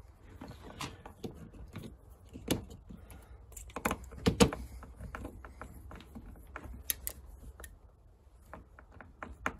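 Hand screwdriver driving a mounting screw through a plastic doorbell's back plate into the frame: irregular light clicks and taps, with a few sharper knocks around the middle.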